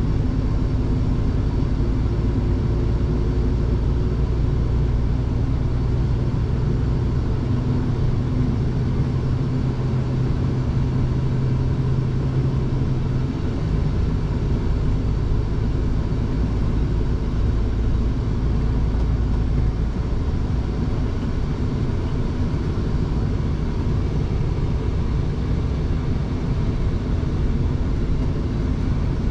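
Scania truck's diesel engine running steadily under way, with road noise, heard from inside the cab. The engine's hum shifts in tone about halfway through.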